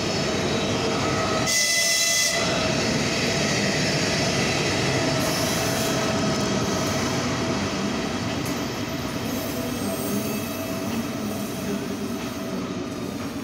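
Electric locomotive rolling along the platform track: a steady rumble of wheels on rails, with a short shrill high-pitched tone about a second and a half in.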